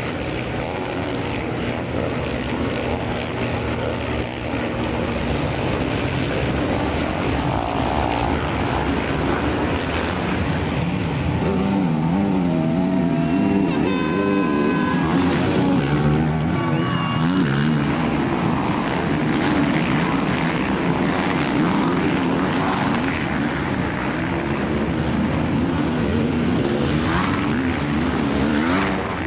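Off-road dirt bike engines revving unevenly, the pitch surging up and down as the bikes are worked through deep mud, growing louder about halfway through.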